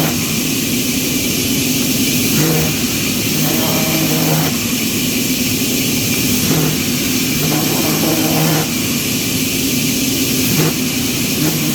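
A motor-driven power tool running steadily with a constant hiss, its low hum coming and going every second or so as the load changes.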